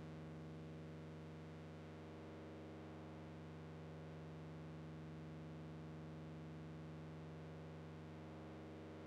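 Faint, steady low hum from a Eurorack modular synthesizer rig: a stack of even overtones that wavers slightly, with no rhythm or notes yet.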